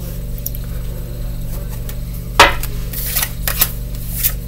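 Tarot cards being handled: a sharp card snap about halfway through, then several lighter clicks and flicks, over a steady low hum.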